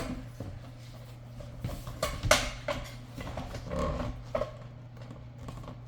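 Scattered clicks and knocks of lawn mower parts being handled and pushed together during assembly, the loudest a little over two seconds in, over a steady low hum.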